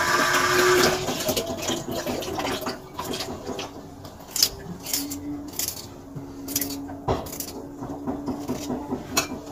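A kitchen tap runs briefly and stops about a second in. Then come scattered clicks and knocks of handling food and utensils at the counter, over a faint steady hum.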